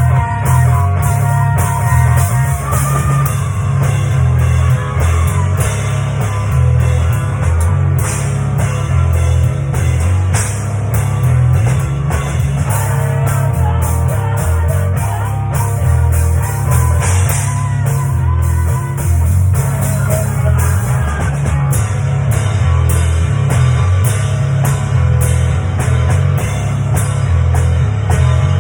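Rock music with a drum kit and guitar over a heavy, pulsing bass, keeping a steady beat.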